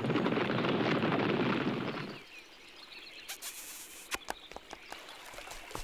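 Cartoon sound effect of a crowd of small critters scrambling out of a tree hollow: a dense scuffling clatter for about two seconds that cuts off suddenly. Then a quieter background with a few sharp clicks.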